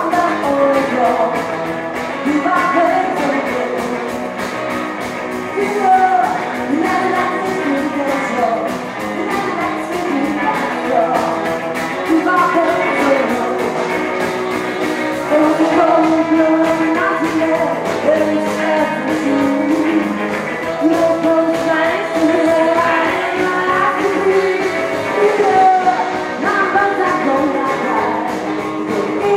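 Live rockabilly band playing a rock and roll number with a singer over a steady drum beat.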